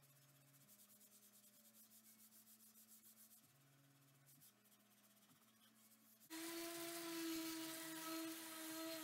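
Faint rasp of sandpaper rubbed by hand back and forth over a maple chair seat. About six seconds in, a DeWalt random orbit sander comes in suddenly and much louder: a steady motor hum with a gritty hiss as its pad sands the seat.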